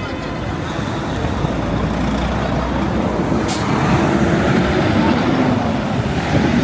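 Street traffic with a heavy vehicle's engine running close by, growing louder over the first few seconds and then holding, with one short high hiss about halfway through.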